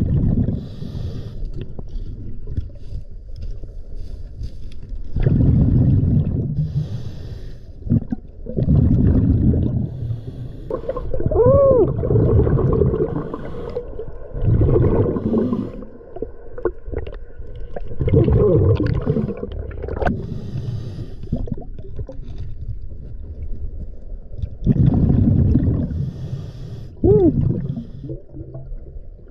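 A scuba diver breathing through a regulator underwater, heard through the camera housing. Each breath is a hiss followed by a burst of exhaled bubbles, one every three to four seconds. Twice a brief squeak rises and falls in pitch.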